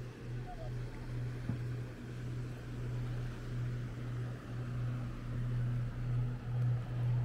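Water noise around a moving kayak: a low rumble that swells and fades in regular surges, getting louder near the end.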